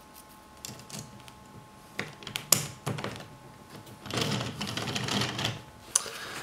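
3D-printed plastic planter boxes clicking and scraping as they are pushed into the rails of a small printed wheel: a run of light clicks in the first few seconds, then a longer scrape of plastic sliding along plastic, and one more click near the end.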